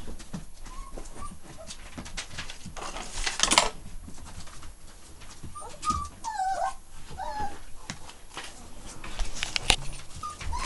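Five-week-old puppy whining in short, falling squeals, once about a second in and several times a little past the middle. Around them come scattered clicks and rustling on bedding, loudest in a burst about three and a half seconds in.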